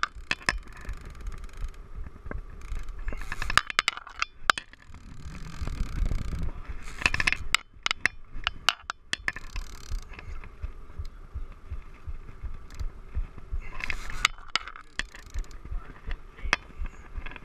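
Conventional saltwater reel being cranked to bring in a hooked king mackerel. The handle and gears make irregular clicks and rattles over a low rumble.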